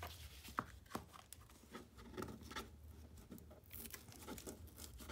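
A used paper coffee filter being torn by hand around a small lid: soft scratchy ripping and rustling of the thin paper, with a few light ticks in the first second and a brief hissy tear near the end.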